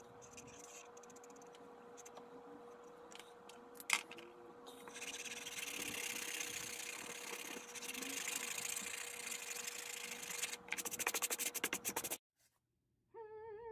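Felt-tip permanent marker scratching softly across canvas, with one sharp click about four seconds in. Then a hand rubs steadily across the canvas surface, ending in a run of quick sweeping strokes before the sound cuts off suddenly. A faint steady hum runs underneath.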